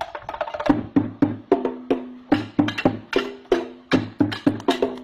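Children's improvised chenda-style drumming: sticks beating a fast, steady rhythm on makeshift drums, about three strokes a second, each stroke ringing briefly with a hollow pitched tone. The beating picks up again after a short gap at the start.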